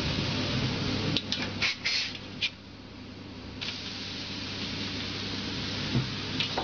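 Crepe batter sizzling on hot crepe griddles, a steady hiss over a low hum, with a few sharp clicks about a second in; the hiss dips for about a second before returning.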